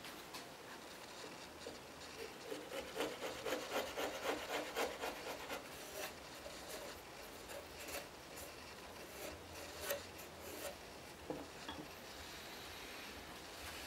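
Hand chisel paring and scraping wood: a run of quick short scraping strokes a few seconds in, then a few single scrapes and taps.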